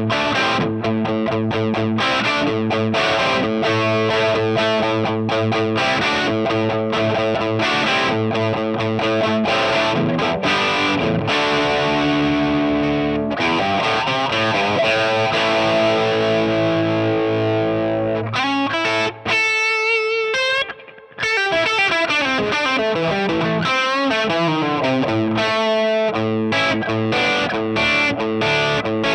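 Electric guitar, a Gibson SG, played through a hand-wired Fender Deluxe Reverb Reissue amp into a Marshall 4x12 cabinet with an overdrive pedal on: distorted chords and lead lines. The playing briefly drops out twice around twenty seconds in.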